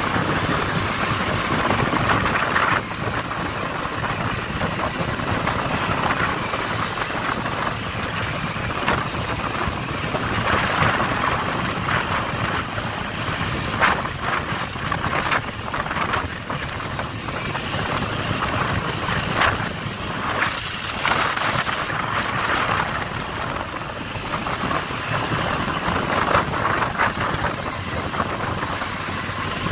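Small Honda motorbike engine running steadily on the move, under a steady rush of wind and road noise.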